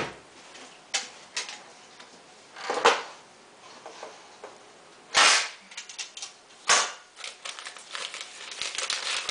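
Sharp knocks and clatters of kitchenware being handled, spaced a second or more apart, with a louder short scrape about five seconds in. From about eight seconds in, a steady crinkling rustle of a paper wrapper being handled.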